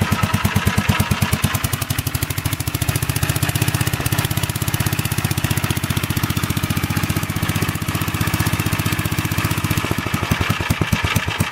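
1947 Gravely Model L walk-behind tractor's single-cylinder engine running steadily with even firing pulses, its cracked exhaust manifold freshly brazed and new bolts fitted. It runs well.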